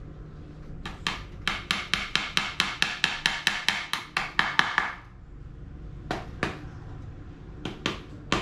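Hammer blows: a fast, even run of about twenty strikes, roughly five a second, stopping after about four seconds, then a couple of single strikes and a short cluster near the end.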